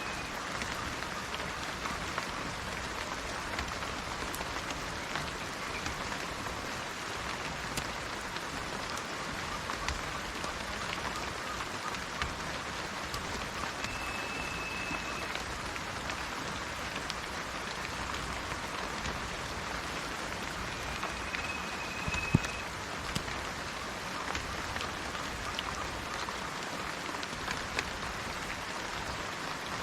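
Steady rainforest rain with scattered small drips and one sharper drip about two-thirds through. A bird gives a short whistled note at one steady pitch three times, each about a second long.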